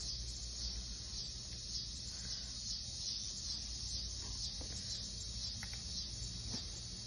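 Chorus of insects trilling, a dense high-pitched pulsing buzz, over a low steady rumble.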